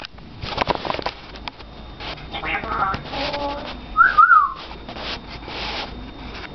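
African grey parrot making assorted noises: scattered clicks and raspy sounds, a short voice-like squawk, and about four seconds in a loud whistle that rises and falls twice.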